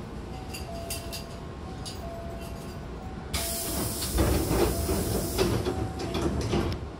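Hankyu train's sliding doors closing: a sudden loud hiss of air starts about three seconds in, with rumbling and knocks as the doors slide shut, and it stops just before the end. Under it, a quiet two-note tone repeats throughout.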